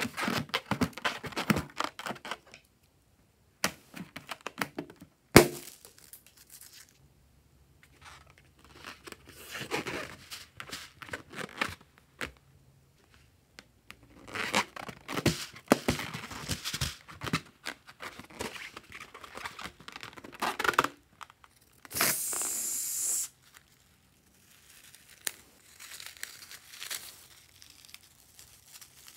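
Rubber balloons being rubbed and handled in the hands, making crinkly, tearing rustles in several bursts with quiet gaps between them. About 22 seconds in there is a steady hiss lasting about a second.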